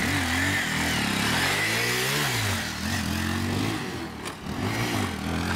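Motorcycle engine revving, its pitch rising and falling several times.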